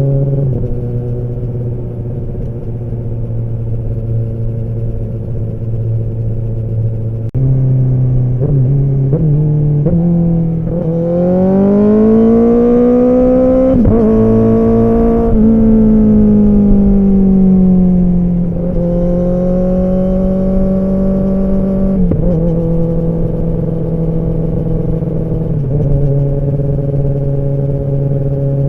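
Kawasaki ZX-10R's inline-four engine and exhaust under way: running steadily, then its pitch rises in a few short quick steps, climbs smoothly to a held peak and slowly falls back, settling to steady running with small drops in pitch near the end.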